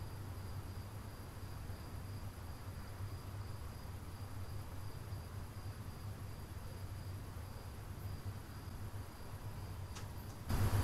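Quiet background with a steady low hum and a faint, steady high-pitched trill. A single faint click comes about ten seconds in, followed at the very end by a sudden, louder burst of noise.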